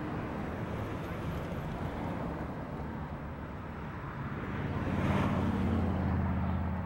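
Jet engines of a large four-engine jet transport running as it rolls along the runway, a steady rumble that swells louder with a deep hum about five seconds in.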